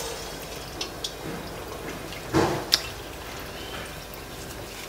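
Hot oil in a kadai sizzling steadily as a lump of urad dal vada batter is dropped in, with a short splash about two and a half seconds in and a few small clicks.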